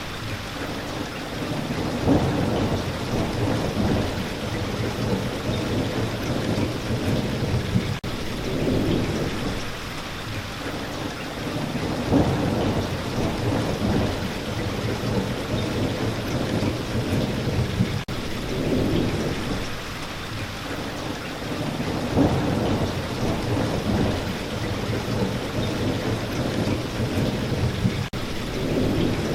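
Steady spring rain with low rolls of thunder that swell and fade every few seconds.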